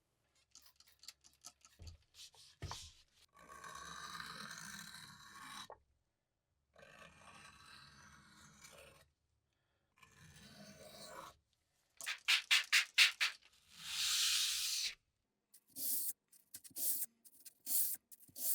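Hand rubbing and scraping strokes in separate passes of a second or two, with a quick run of about five short strokes about two-thirds of the way through and a brief louder scrape just after.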